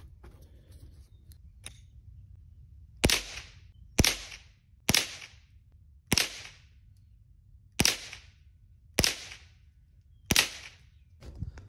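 Winchester Model 74 semi-automatic .22 LR rifle firing seven shots, the first few about a second apart and the rest more spaced out, each a sharp crack with a short echo.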